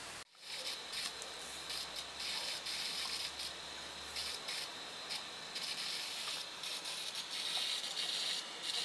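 Grass and weeds rustling and tearing as they are pulled up by hand, in uneven bursts over a steady high hiss.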